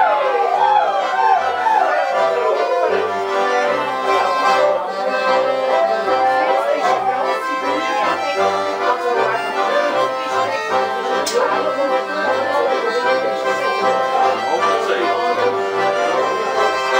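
Accordion music: a wavering melody over a bass line of short, evenly spaced notes, fading out at the very end.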